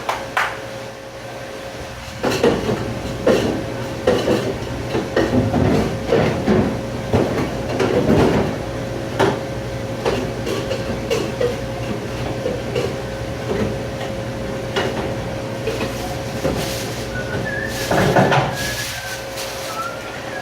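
Kitchen clatter of dishes and racks being handled, with many sharp knocks starting about two seconds in, over a steady machine hum.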